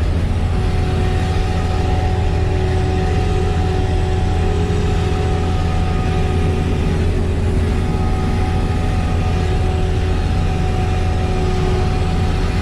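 Kleine SF10.2 self-propelled sugar beet harvester running steadily: a constant low engine drone with a faint steady whine over it.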